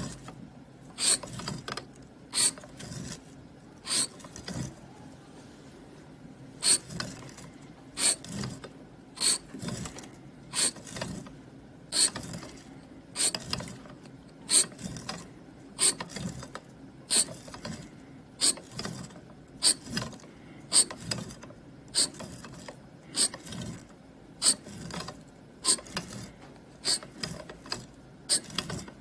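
A hand scraping tool cutting grooves into a dark-surfaced metal block, stroke after stroke. Each stroke is a short, sharp, high scratch, about one or two a second, with a pause of about two seconds a few seconds in.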